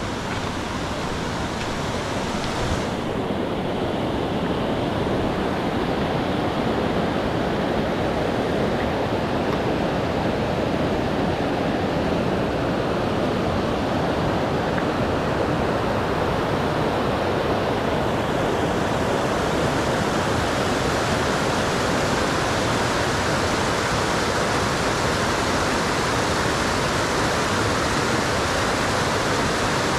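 Steady rush of flowing mountain water, a continuous hiss. It grows a little louder and hissier from about halfway through.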